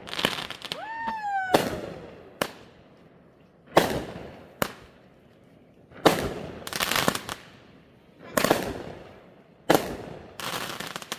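Fireworks going off in a quick series of sharp bangs, about ten of them, each with a short echoing tail. A whistle falls in pitch about a second in, and one burst trails off in crackle near the middle.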